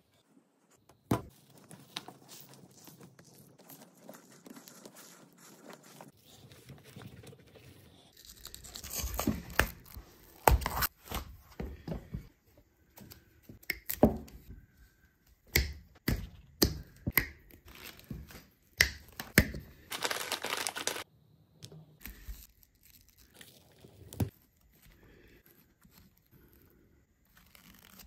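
Thick H07RN-F rubber-sheathed cable being handled and stripped: scattered knocks, clicks and scraping, tearing noises as the rubber outer sheath is cut and pulled away from the cores.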